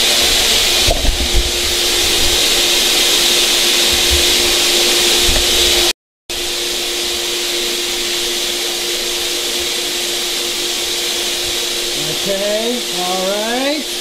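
Vacuum cleaner motor running steadily, blowing air back through a car's exhaust system to pressure-test the turbo and exhaust flange joints for leaks with soapy water. The sound cuts out for a moment about six seconds in.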